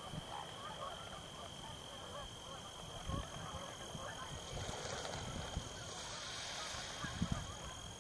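Distant chorus of many waterfowl calling over one another, a dense steady babble with no single call standing out.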